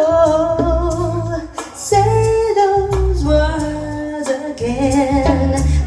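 A pop ballad played through a Sound Logic SL15 speaker for a sound check: a sung vocal holds long notes that change pitch every second or two, over heavy bass.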